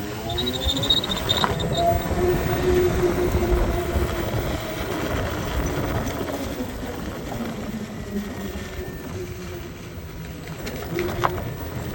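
Ola S1 Pro Gen 2 electric scooter under hard acceleration: the drivetrain whine rises and falls in pitch, with a high screech in the first couple of seconds, a noise the owner traces to the drive pulley. Two sharp clicks, one early and one near the end.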